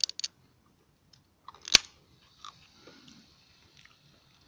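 Red fox chewing and crunching food: a few sharp cracks at first, one much louder crack a little under two seconds in, then fainter gnawing clicks.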